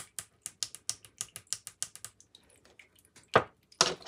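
Rapid light tapping of fingernails on a tarot card on a wooden table, about six taps a second, then two louder knocks a little after three seconds in as a polished stone is set down on the card.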